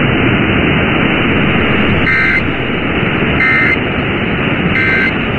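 Emergency Alert System end-of-message code: three short bursts of warbling digital data tones, evenly spaced a little over a second apart, over loud steady radio static. They mark the end of the tornado warning broadcast.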